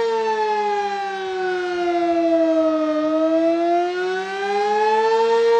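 Sentry 20V2T electromechanical outdoor warning siren sounding in a test: a steady multi-tone wail whose pitch slowly sags to a low point about three seconds in, then climbs back to full pitch.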